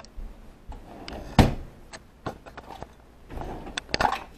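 Kitchen things being handled: a few scattered clicks and knocks, with one loud thump about a second and a half in and a quick run of clicks near the end.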